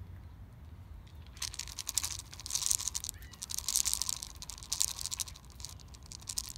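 Dense crackling, crinkling rustle that starts about a second and a half in and runs on for several seconds.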